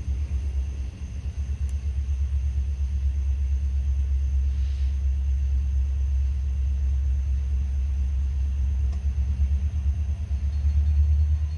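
Low, steady rumble of an approaching diesel freight train, growing a little louder near the end.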